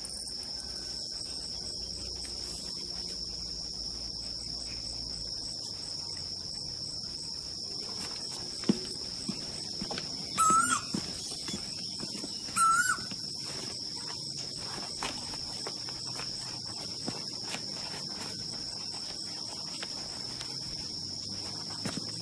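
Steady, high-pitched drone of an insect chorus, with two short warbling bird calls about ten and twelve and a half seconds in.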